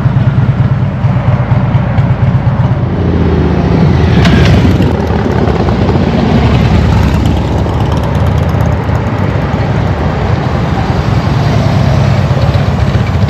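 Harley-Davidson V-twin motorcycle engine running loud and steady at low speed, with a brief swell about four seconds in.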